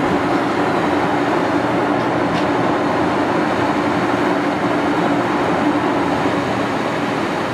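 Poreba heavy-duty engine lathe running under power: a steady mechanical drone with a constant hum from the drive.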